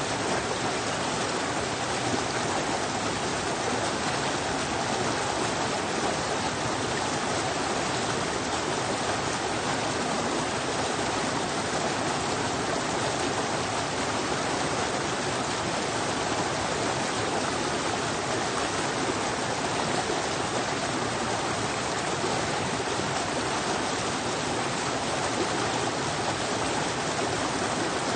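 Fast-flowing forest stream rushing over rocks in a small cascade: a steady, unbroken rush of water.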